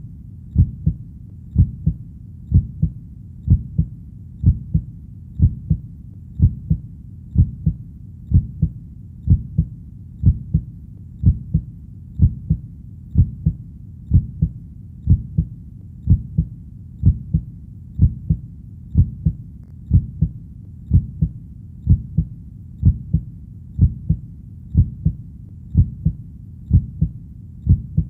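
Heartbeat sound: a steady lub-dub rhythm of low, dull double thumps, about one beat a second.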